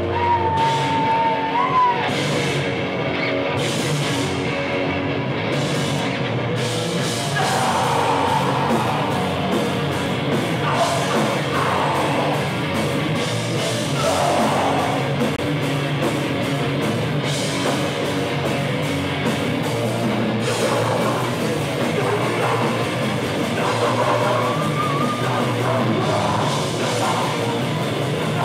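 Hardcore punk band playing live: loud distorted guitars, bass and drums. A held high tone rings over the first two seconds, and yelled vocals come in over the band from about seven seconds in.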